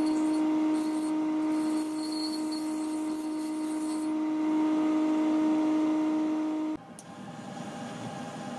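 Bench grinder running with a steady hum while the steel blade of a broken döner knife is ground on its stone wheel, the grinding hiss coming and going as the blade is pressed on and lifted off. Near the end the hum stops suddenly and a quieter steady hiss follows, from a small handheld gas torch heat-treating the blade.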